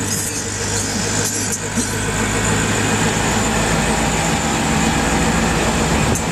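Auto-rickshaw engines running steadily under way, a low hum with road and traffic noise, heard from inside an open-sided auto-rickshaw with others driving alongside.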